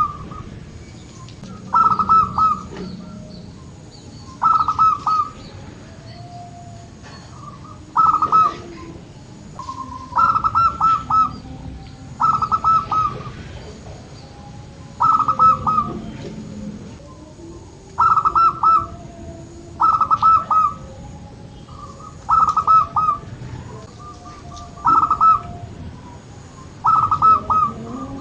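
Zebra dove (perkutut) cooing: a short phrase of several quick ringing notes, repeated about every two to three seconds, with fainter lower calls in between.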